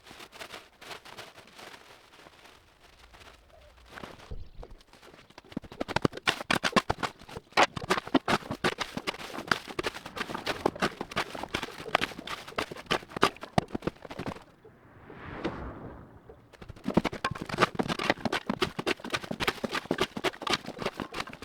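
Rapid clattering and crackling of rotten wood and dry old corn cobs being cleared. It comes in two long busy stretches, with a short whoosh that swells and fades between them.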